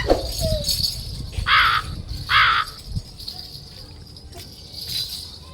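A crow cawing twice, short harsh calls about a second apart, over a faint high jingling.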